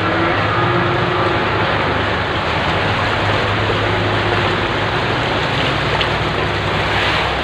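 Floodwater churning and sloshing as a vehicle pushes through a flooded street, over the steady low hum of a truck engine.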